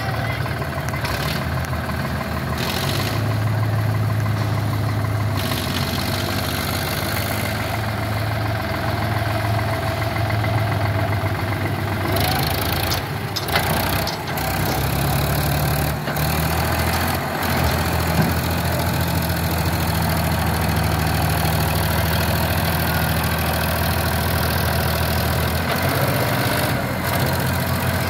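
Sonalika tractor's diesel engine running under load, its note shifting slightly about halfway through and again near the end, while the tractor is stuck with its rear wheels spinning in soft soil.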